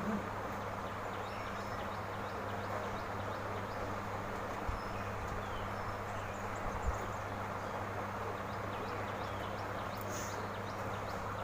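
Steady background noise with a low hum and a few faint high chirps, and two soft thumps about five and seven seconds in; no sneeze.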